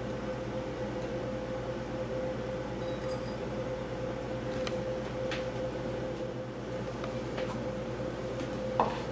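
A metal fork clinking and scraping against a ceramic bowl as noodles are tossed in oil, with a few light clinks and a louder clink near the end, over a steady hum.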